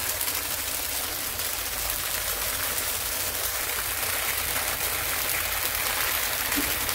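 Tofu slices sizzling steadily in hot oil in a nonstick frying pan, a dense, crackly hiss, with a low hum underneath.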